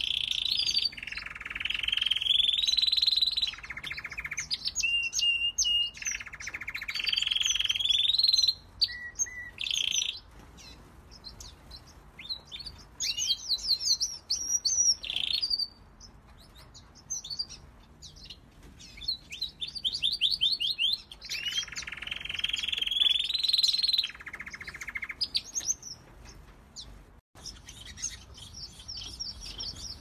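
Canary singing: a long, varied song of rolling trills and fast chirping runs, loud and in phrases a few seconds long with short pauses between. Near the end the song stops and gives way to softer, high-pitched twittering.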